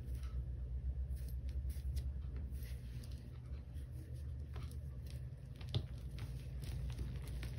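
Hands squeezing and crumbling clumps of green powder, which gives soft crunching and crackling as the clumps break and the powder sifts down, with one sharper click about three-quarters of the way through.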